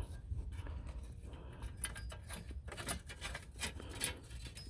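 Light metallic clicks and scrapes of wheel-hub mounting bolts being threaded in by hand and the hub being handled, irregular small ticks over a low background hum.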